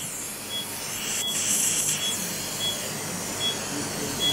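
A short high beep repeats evenly about every three-quarters of a second, the pulse tone of a patient monitor, over the hiss of a surgical suction aspirator that swells about a second in.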